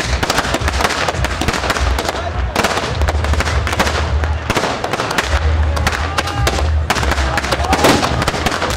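Aerial fireworks going off close overhead in rapid succession: a dense, unbroken run of crackling bangs and pops.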